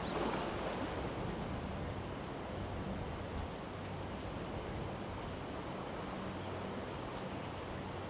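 Steady outdoor background noise with several short, high-pitched bird chirps scattered through it, and a faint low hum underneath.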